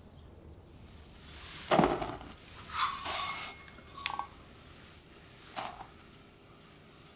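Dry ingredients poured from a metal measuring cup and a small glass dish into a glass mixing bowl: about four short clinks and rustles, the longest about three seconds in.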